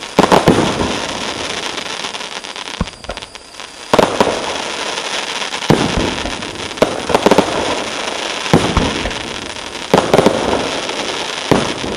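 A 50 mm fireworks cake firing shot after shot: a sharp report every one to two seconds, with dense crackling from the crackling-star bursts filling the gaps between them.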